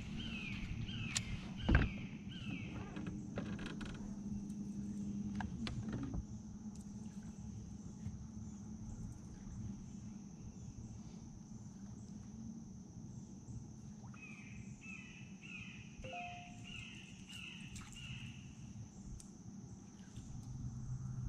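Swamp ambience: a steady high-pitched insect drone, with a bird repeating a short falling note about twice a second at the start and again for several seconds near the end, over a low hum. A single sharp knock comes about two seconds in.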